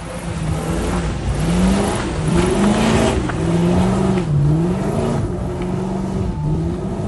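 Car engine revving up and down repeatedly, its pitch rising and falling in a series of swells.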